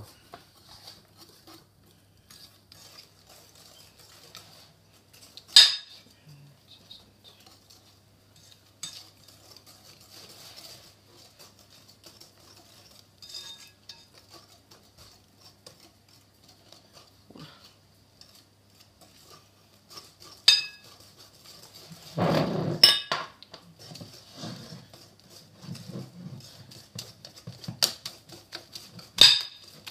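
A utensil stirring thick brownie batter in a glass mixing bowl, clinking and scraping against the glass, with a few sharper knocks, the loudest bunched about twenty-two seconds in.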